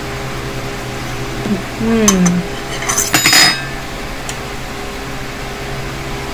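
A metal fork clinking against a white ceramic bowl a few times, about two to three and a half seconds in, over a steady background hum.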